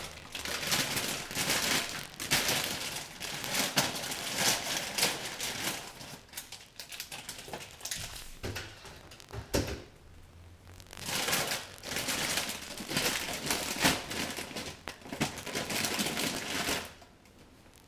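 Hand-held vegetable peeler scraping the skin off potatoes in quick, rapid strokes. The scraping pauses for a few seconds midway and then starts again.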